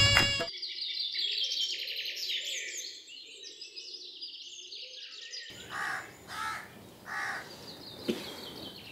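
Small birds chirping busily, many quick sweeping high notes, followed by crows cawing four times against a low outdoor hiss. The tail of background music stops about half a second in.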